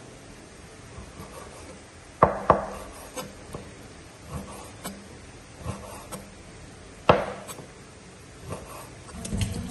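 Steel meat cleaver cutting raw beef on a thick round wooden chopping board: irregular knocks of the blade on the wood, three of them sharp and loud, with softer cuts and slicing in between.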